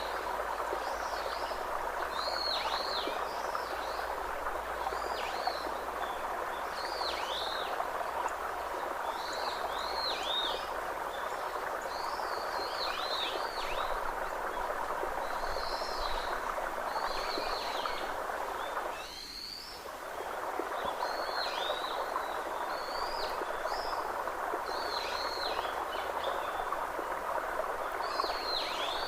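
A bird calling over and over, short high notes that sweep downward, often in pairs, every second or two, over a steady rushing background noise that drops out briefly about two-thirds of the way through.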